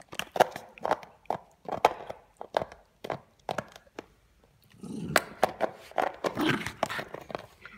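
A dog chewing an empty plastic soda bottle: sharp plastic crackles and crunches about twice a second, a short pause, then more crunching with a low growl mixed in over the last few seconds.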